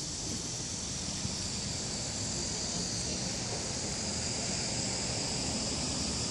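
Steady outdoor ambience: a continuous high-pitched insect chorus from the trees, over a low rumble of wind on the microphone.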